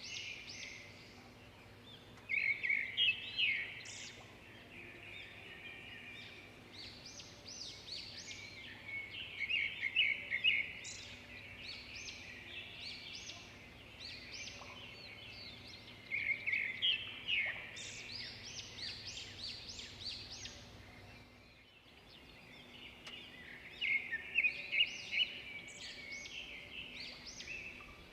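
Songbirds singing: a chorus of quick chirps and trills, with busier bursts every several seconds, over a faint steady low hum.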